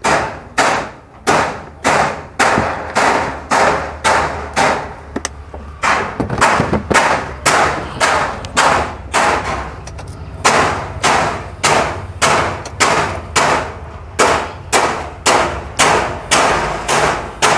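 A steady run of sharp knocks, about one and a half to two a second, each ringing briefly. Around the middle the knocks pause and come weaker for a few seconds, then resume at full strength.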